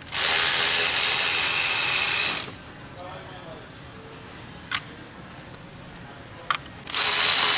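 Cordless electric ratchet spinning out T30 Torx bolts. It runs for about two seconds, then after a pause with a couple of light clicks it starts running again near the end.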